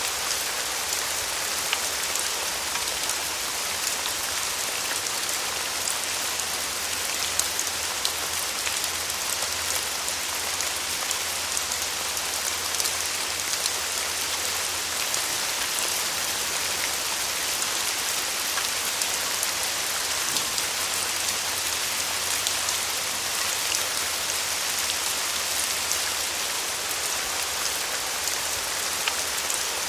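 Steady rain falling, a dense even hiss with many small drops ticking.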